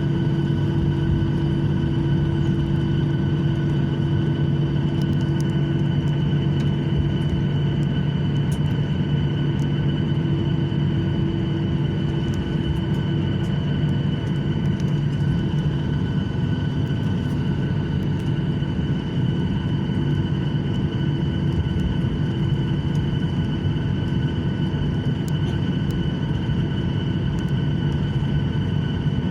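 Airliner cabin noise after landing: a steady rumble with the constant hum and whine of the engines at low power and the cabin air system, a few held tones running through it.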